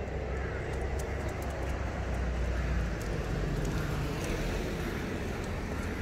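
Low, steady rumble of road traffic, swelling a little in the middle as a vehicle passes.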